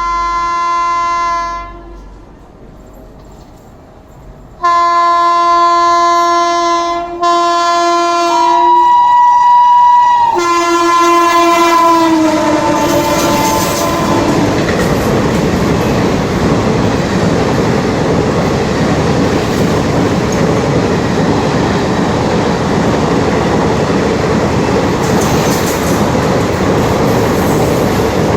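Locomotive horn sounding two long blasts, the second dropping in pitch as the train goes past, followed by the loud, steady rush of a fast train passing.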